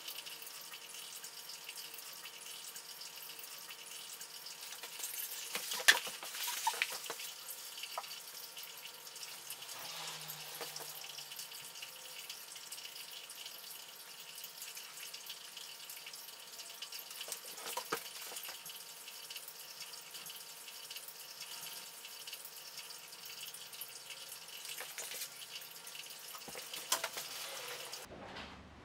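Aquarium sand being worked by hand in a glass tank, sped up: a steady trickling hiss with a few sharp clicks, the loudest about six seconds in.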